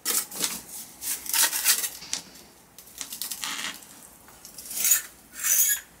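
Metal soil blocker being packed with damp soil mix and scraped with a metal scoop: a run of short gritty scrapes and metal clinks, with a louder pair of scrapes near the end.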